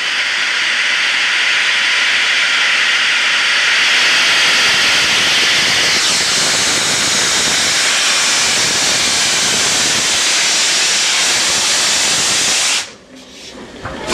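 Steam locomotive 60163 Tornado, a Peppercorn A1 Pacific, blowing off steam: a loud, steady hiss that cuts off suddenly near the end.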